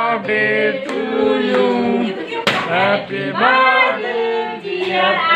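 Singing with music: a sung melody of long held notes that rise and fall in pitch.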